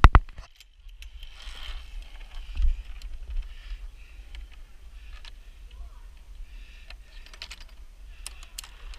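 Scattered light clicks and rustles over a steady low rumble.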